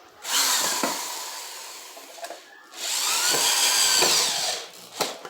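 Handheld electric drill running into wood in two bursts of about two seconds each, its motor pitch rising and falling under load.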